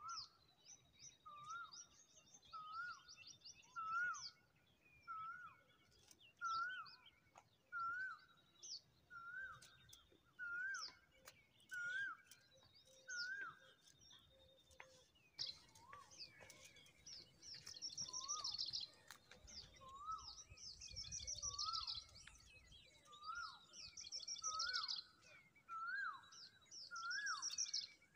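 Birds calling: a short whistled note that rises and drops, repeated about once a second with a brief pause about halfway, under higher, rapid trilling songs that grow stronger in the second half.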